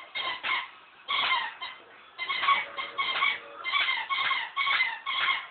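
Rubber squeaker in a dog toy squeaking over and over as a dog chews and tugs at it to get the squeaker out. The squeaks come about two a second, with a short pause about a third of the way in.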